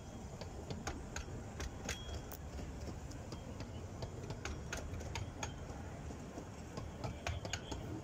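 15-inch gauge miniature-railway coaches rolling past, their wheels clicking irregularly over rail joints above a low rumble.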